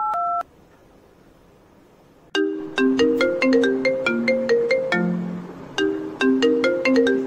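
Mobile phone ringing with a melodic ringtone: a repeating tune of short, bright struck notes that starts a little over two seconds in. At the very start, the tail of phone keypad dialing beeps.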